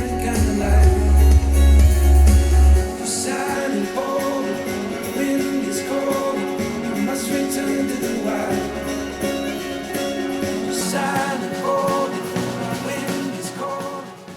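Song with guitar played back through a loudspeaker and recorded by microphone. Heavy deep bass drops out about three seconds in, and the music fades out at the end.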